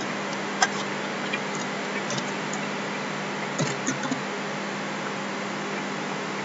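A few soft computer keyboard and mouse clicks, one about half a second in and a small run near the middle, over a steady background hiss and hum.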